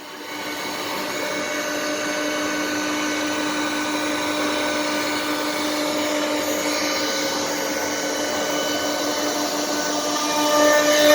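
CNC wood router's motor running steadily, a constant whine over a rushing noise, building up over the first second or two.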